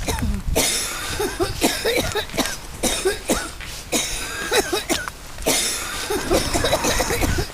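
Repeated human coughing: short coughs follow one another in quick succession, with a couple of brief pauses.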